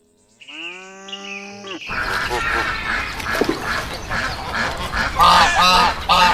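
A brief drawn-out animal call, then a flock of geese honking, with a run of quicker calls and the loudest honks coming in pairs near the end.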